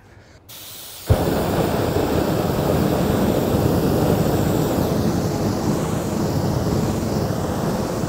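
Aerosol spray can lit as a makeshift flamethrower. A brief hiss of spray, then the jet catches about a second in and burns with a steady, loud rush of flame, which cuts off suddenly at the end.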